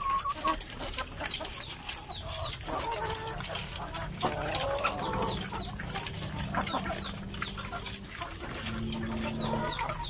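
A flock of caged laying hens clucking, mixed with many short clicks and taps.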